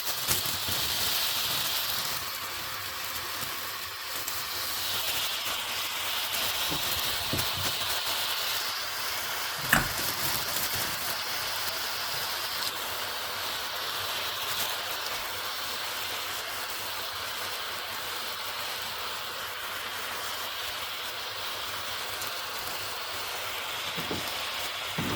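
Vegetables sizzling steadily in olive oil in a soup pot as freshly added spinach wilts down on top of onion, mushrooms and carrots, with a single sharp knock about ten seconds in.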